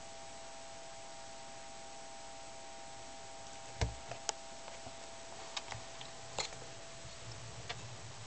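Steady recording hiss with a faint steady electronic whine, then from about halfway a low thump followed by a scatter of sharp clicks and knocks: camera handling as the camera is moved in closer.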